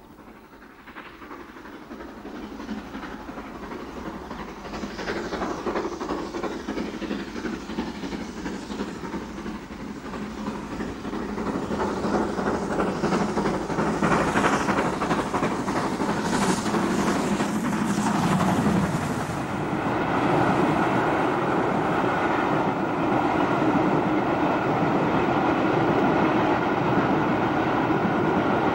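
GWR Castle class 4-6-0 steam locomotive 5080 Defiant approaching under steam, growing steadily louder, and passing about halfway through; its train of coaches then rolls by with a steady rumble and wheels clattering over the rail joints.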